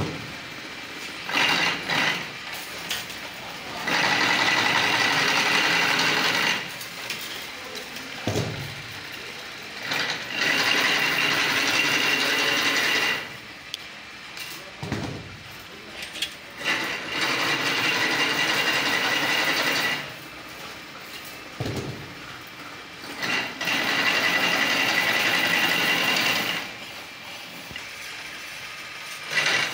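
Chain link fence weaving machine running in repeated cycles: about three seconds of loud, steady metallic whirring and rattling as the wire spiral is formed, then a quieter pause with a few clanks and a short low thud, four times over, roughly every six and a half seconds.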